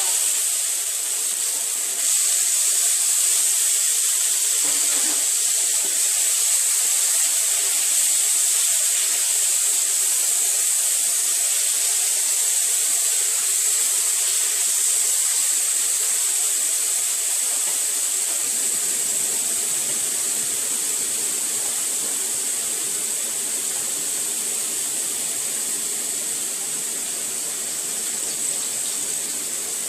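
Crushed ginger, garlic and chopped tomato sizzling in hot oil in a pan: a loud, steady frying hiss.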